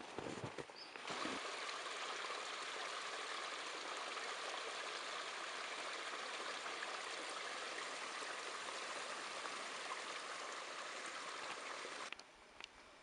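A few footsteps crunching in snow, then a small creek trickling over stones, a steady rushing that cuts off suddenly near the end.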